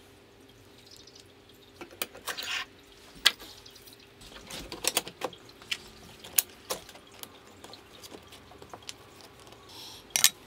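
Scattered light clicks and knocks of metal 3D printer kit parts being handled and fitted: steel rods, a linear bearing block and an aluminium bed carriage plate. A faint steady hum runs underneath.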